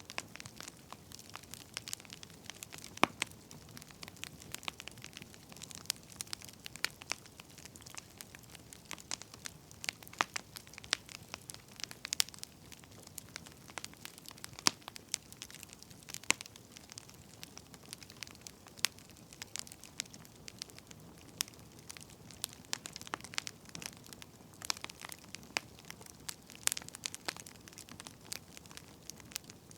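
Wood fire burning, firewood crackling and popping in frequent irregular snaps over a low hiss, with a few louder pops.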